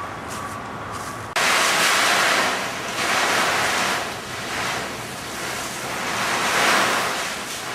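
Loud, even rushing storm noise of wind and water that cuts in abruptly about a second and a half in, then swells and eases in slow surges.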